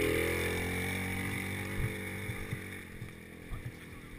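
Small engine of an off-road buggy passing close by and driving away, its note dropping in pitch and fading over a few seconds. A few light knocks near the middle and end.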